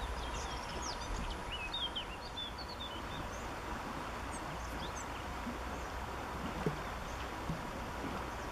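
Outdoor ambience: small birds chirping in short calls, busy in the first few seconds and sparse later, over a steady low rumble. One brief tap late on.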